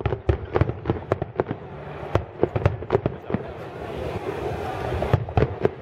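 Fireworks going off in a dense, irregular barrage: many sharp bangs and crackling pops, several a second, over a rolling rumble of shell bursts.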